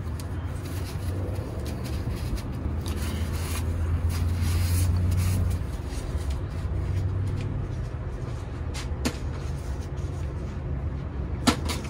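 The Porsche Macan's 2.0-litre turbocharged four-cylinder engine idling with a steady low hum, which grows louder for a couple of seconds in the middle and then drops back. A sharp click near the end.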